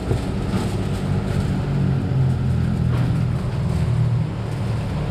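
A steady low mechanical rumble, with a couple of faint clinks of a metal spoon in a steel bowl, one about half a second in and one about three seconds in.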